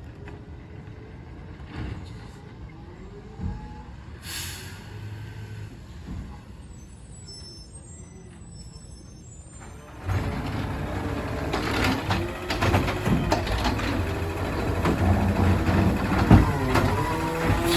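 Garbage truck with an automated side-loading arm: a short air-brake hiss about four seconds in and a few faint high beeps. About ten seconds in the engine revs up loudly as the truck works, its pitch rising near the end.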